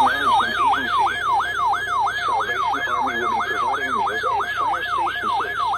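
Electronic siren-style alert tone that sweeps quickly and repeatedly down in pitch, about two and a half sweeps a second, sounding at the start of an emergency alert broadcast.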